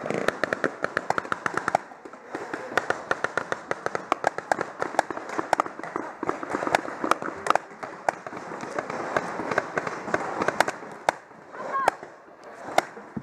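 Paintball markers firing in rapid strings, many sharp shots a second, with a short pause about two seconds in and the shooting thinning out near the end. A voice shouts near the end.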